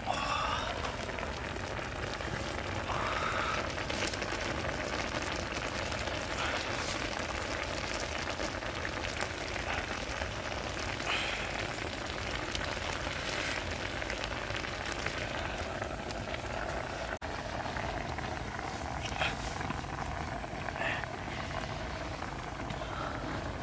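Catfish curry broth boiling in a metal pan over a wood fire: a steady bubbling with occasional small pops or crackles.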